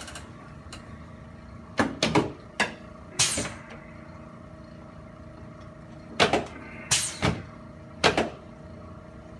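Several short knocks and thumps in small clusters on a chiropractic treatment table, as the patient lying on his back is shifted and positioned for an adjustment.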